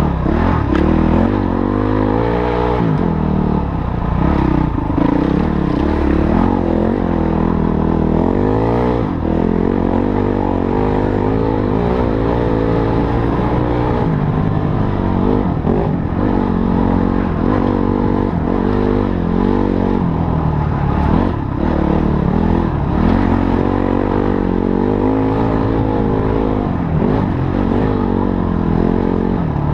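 Motorcycle engine being ridden, its pitch rising and falling every few seconds as the throttle opens and closes and gears change, with clatter and scraping underneath.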